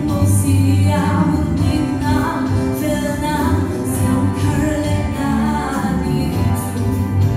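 A woman singing a solo through a microphone, her melody gliding and holding over amplified instrumental accompaniment with a steady bass.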